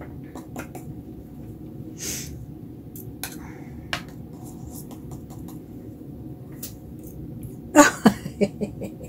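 A worn paintbrush loaded with watery white acrylic is tapped to flick splatters onto a painting. A few light clicks of brush and water cup come over a steady low room hum, then near the end a short loud knock is followed by a quick run of about five sharp taps as the paint spatters.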